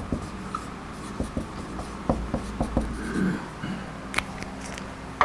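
Marker pen writing on a whiteboard: a run of short scratchy strokes over the first three seconds as the letters are drawn, then a single click about four seconds in.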